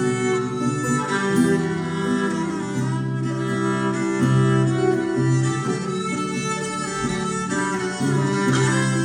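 A band playing an instrumental passage of a song with no singing: held bowed-string notes over plucked strings and a low sustained line.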